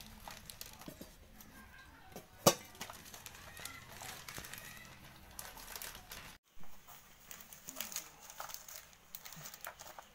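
Small handling sounds of food preparation: one sharp knock about two and a half seconds in, scattered light taps and scrapes, and rustling plastic sheet near the end, with faint animal calls in the background.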